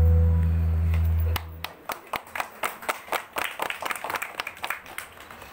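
Dance music with a heavy bass note stops about a second and a half in, and a small audience claps in scattered, uneven claps for a few seconds.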